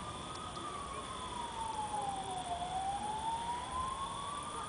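A siren wailing slowly, its single tone rising, falling over about two seconds and rising again. Under it run a steady high-pitched whine and a background hiss.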